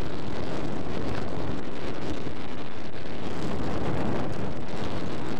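Wind buffeting a phone microphone from inside a moving car: a steady rushing noise that drowns out everything else.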